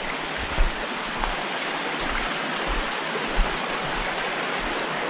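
Small mountain creek rushing steadily over rocks, with a few soft low bumps on top.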